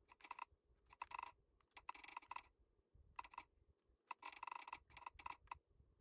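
Faint clacking of a Redragon K596 mechanical keyboard being typed on, fitted with Akko CS Lavender Purple tactile switches. The keystrokes come in quick bursts of several strokes with short pauses between them.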